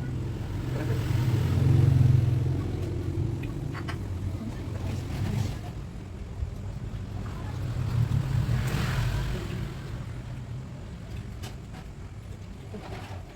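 A low rumble that swells about two seconds in and again about eight seconds in, with a few faint clicks.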